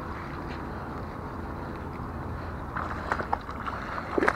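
A hooked largemouth bass splashing at the surface near the bank. There are a few short splashes, the loudest cluster near the end, over a steady low rumble.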